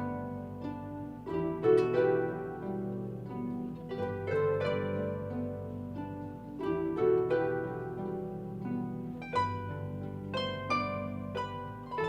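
Harp music: plucked strings playing a melody over ringing bass notes, with the notes decaying after each pluck.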